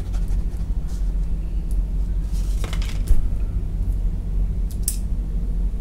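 Steady low background hum, with a few faint clicks and taps from a metal pen and a piece of cardboard being handled and set down on a workbench.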